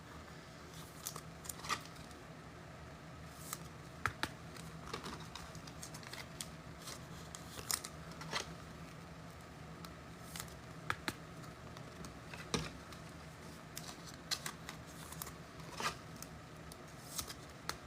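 Faint, irregular clicks and light handling noises of trading cards and card packs being handled and opened, over a low steady hum.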